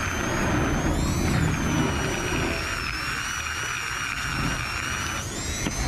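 Small high-speed power grinder whining while it grinds a little metal off the crown of a 57 mm motorcycle piston, to lower the engine's compression. The pitch wavers as the tool bites, and it stops near the end.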